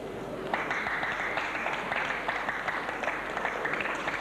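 Audience applauding, starting suddenly about half a second in and keeping up steadily.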